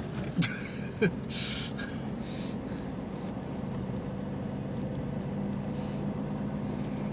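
Car cabin drone while driving through deep snow: a steady engine and road hum, with two sharp thumps about half a second and a second in, then two short bursts of hiss.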